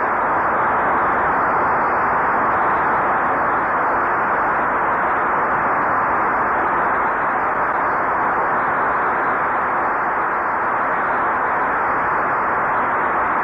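Large audience applauding, a dense even clatter with no single claps standing out, muffled and dull as heard on an old recording that carries little treble.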